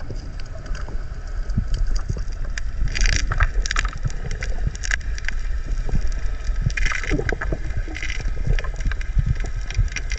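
Wind rumbling on the microphone at sea, with short splashes of water coming and going.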